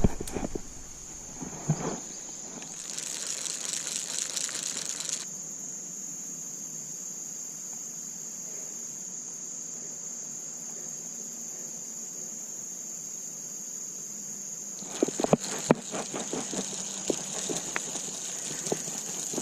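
Insects chirping in a steady, high-pitched chorus. A short rustle comes about three seconds in, and a run of scattered clicks and knocks starts near the end.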